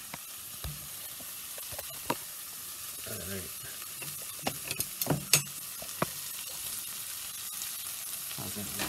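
Onions, dried guajillo chilies and apple sizzling in a stainless steel saucepan on a gas burner, being stirred, with a few sharp clinks of the utensil against the pan about four to six seconds in.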